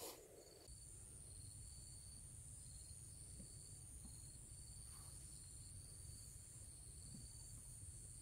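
Faint chirping of insects: a steady high-pitched trill with a lower chirp repeating in short pulses over it. A brief click comes right at the start.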